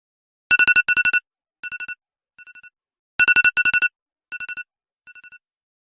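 iPhone alarm tone: groups of very rapid high electronic beeps. Each cycle has two loud groups followed by two fainter ones, as if echoing away, and the cycle repeats about two and a half seconds later.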